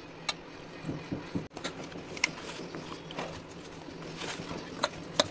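Hands kneading wheat-flour dough for paratha: irregular soft slaps, squishes and light taps.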